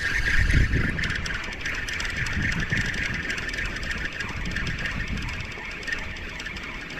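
Penn spinning reel being cranked, a steady fast-ticking whir of its gears and line. Wind buffets the microphone near the start.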